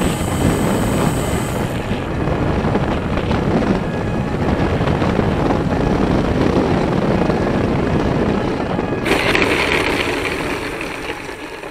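Steady rushing noise of a radio-controlled plane in flight, propeller and wind. A brighter hiss joins about nine seconds in, and the sound dies away near the end.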